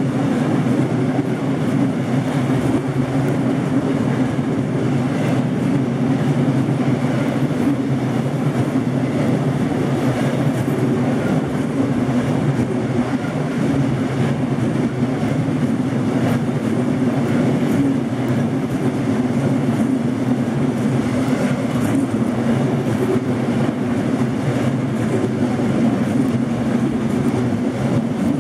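Empty double-deck car-transporter freight wagons rolling past on the rails: a steady rumble of wheels on track with a few light clicks.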